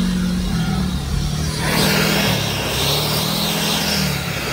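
Off-road 4x4 engine under load, its revs rising and falling, with a rushing hiss that comes in about two seconds in.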